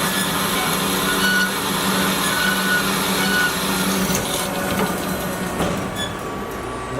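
Cosen AH-320H dual column automatic band saw running through its automatic cutting cycle, a steady machine hum with a blade whine; about four seconds in the sound changes and eases off as the cycle winds down.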